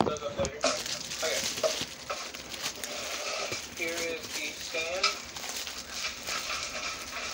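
Rustling and handling of packaging during an unboxing, with scattered clicks and two short pitched calls about four and five seconds in.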